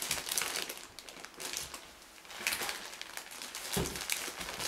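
Plastic mushroom grow bags packed with sawdust crinkling and rustling as they are pushed down into a pressure canner, with a soft bump near the end.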